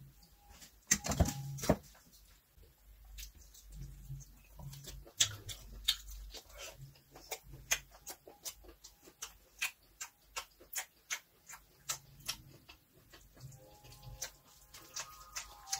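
Close-up eating sounds: chewing and lip smacks heard as many short, irregular clicks, with fingers working rice on a plate. There is a louder knock about a second in.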